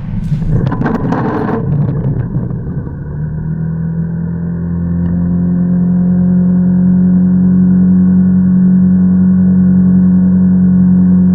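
Honda CT125 Hunter Cub's single-cylinder engine running under way at a steady pace, its note growing louder over a few seconds and then holding. Wind buffeting and clatter come in the first two seconds.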